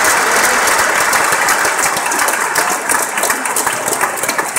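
Crowd applauding, the clapping thinning out to scattered claps toward the end.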